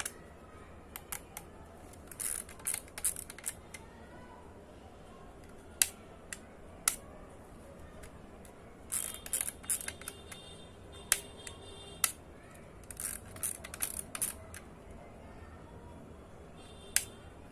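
Olympus XA-2 compact camera worked by hand: irregular sharp mechanical clicks, some single and some in quick clusters, from its controls as it is operated.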